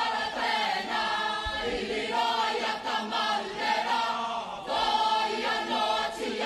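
Kapa haka group singing a Māori chant in unison, many voices together, in phrases with a short break a little before the end.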